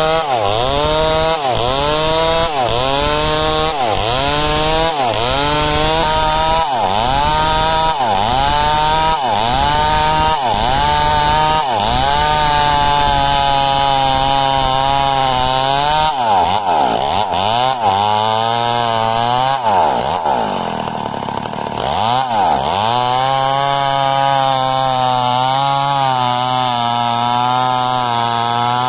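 Two-stroke chainsaw ripping a timber log lengthwise. Its engine pitch dips and recovers about once a second for the first ten seconds or so, then holds steady at high revs, with a few more dips around the middle.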